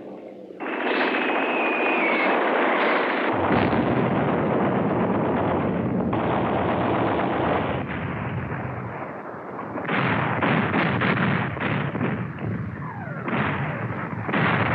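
Battle sounds of gunfire, with rapid machine-gun fire and the rumble of heavier fire, starting suddenly about half a second in. They ease off a little past the middle, then come back as sharper single shots near the end.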